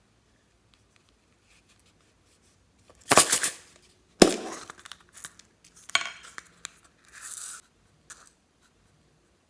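Slime being handled and stretched, giving crackly tearing and popping sounds in bursts: a loud burst about three seconds in, a sharper one just after four seconds, then scattered pops and clicks and a short crackle near the end.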